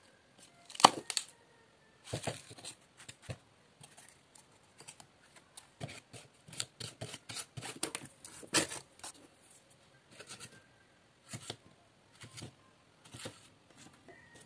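Cardboard and paper toy-kitchen pieces being handled: a cardboard knife pressing a paper fish on cardboard, then a cardboard spatula scraping and tapping in a cardboard pan. It comes as a string of irregular dry scrapes, rustles and taps, the loudest about a second in.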